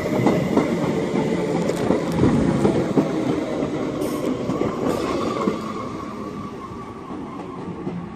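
Class 319 electric multiple unit pulling into a platform, its wheels clattering over the rails as it slows, with a thin brake squeal coming in about four seconds in. The running noise dies away over the last few seconds as the train comes to a stand.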